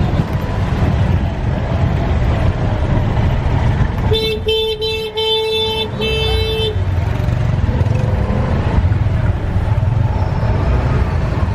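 Busy street traffic: a steady low rumble of car and motorbike engines and tyres. About four seconds in, a vehicle horn sounds a quick string of toots lasting roughly two and a half seconds, the last ones held longer.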